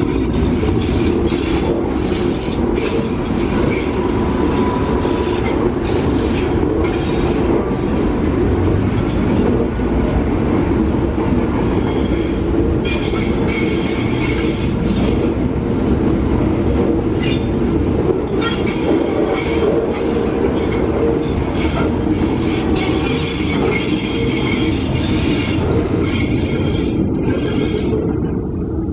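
A green KAI diesel multiple unit running past at close range on a curved street-side track. Its wheels squeal against the rails in long stretches over a steady rumble from the train.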